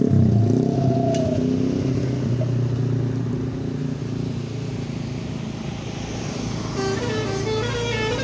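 A large road vehicle's engine running as it passes, loudest at the start and fading through the middle. About seven seconds in a telolet horn, a Basuri V3 multi-tone musical bus horn, starts playing a quick melody of stepping notes.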